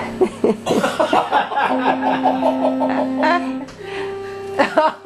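People laughing in a run of quick bursts, with two long held notes, one after the other and the second higher, sung or played underneath.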